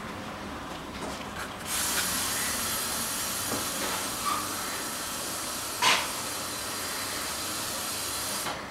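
Steady hiss from carpet-cleaning equipment, starting about two seconds in and cutting off suddenly near the end, with one sharp click about six seconds in.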